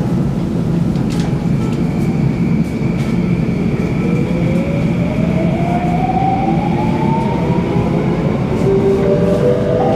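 Downtown Line MRT train heard from inside the car, pulling away: a steady rumble with an electric traction-motor whine that starts about four seconds in and climbs steadily in pitch as the train accelerates.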